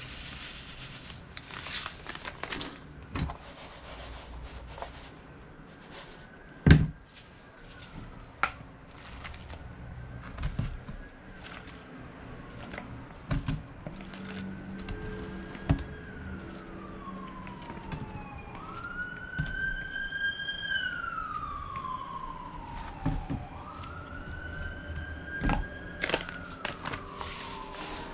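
A siren wailing in slow rising and falling sweeps, faint at first and plainer in the second half, heard over kitchen handling sounds. Dry panko breadcrumbs pour into a plastic container at the start and again near the end, and there are scattered knocks and clicks; the loudest is a sharp knock about seven seconds in.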